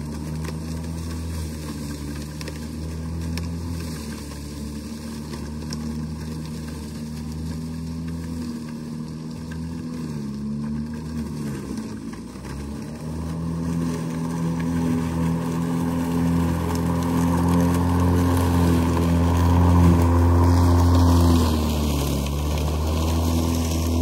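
Makita 18V X2 (36 V) cordless self-propelled lawn mower running and cutting tall grass, a steady electric-motor and blade hum. The pitch sags briefly twice around the middle as the blade slows under the load and then recovers, and the hum grows louder in the second half.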